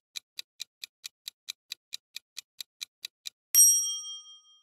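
Countdown-timer sound effect: quick clock ticks, about four or five a second, stop about three seconds in and are followed by a bright bell-like ding that rings and fades, marking the end of the answer time.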